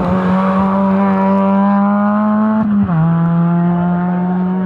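Suzuki Swift rally car's engine pulling hard under acceleration, its pitch climbing slowly; about three seconds in an upshift drops the pitch, and it climbs again as the car drives away.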